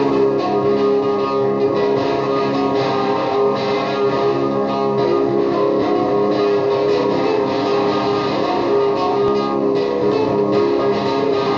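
Electric guitar played through an Orange amplifier as a psychedelic noise loop: a dense, steady wash of layered, sustained notes.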